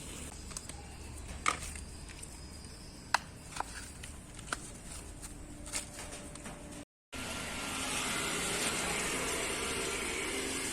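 Scattered sharp clicks and taps, such as tools and bicycle bottom-bracket parts being handled, with the loudest about one and a half and three seconds in. After an abrupt cut about two-thirds of the way through, a steady hiss-like background takes over.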